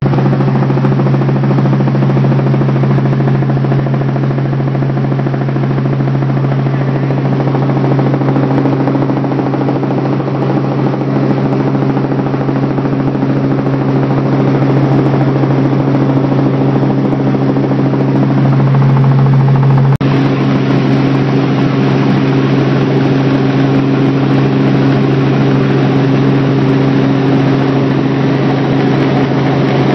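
Robinson R44 Raven II helicopter in flight, heard from inside its cabin: the steady drone of its piston engine and rotors, a strong low hum with steady overtones. It swells briefly a little past the middle, and there is a single click about two-thirds of the way through.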